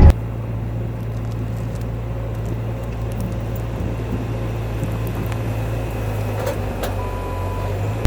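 Bobcat T650 compact track loader's diesel engine running at a low, steady drone, with a few faint clicks near the end.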